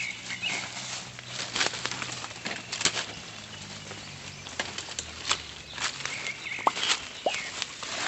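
Footsteps crunching and rustling through dry leaf litter and undergrowth, an irregular run of short crackles as plants brush past.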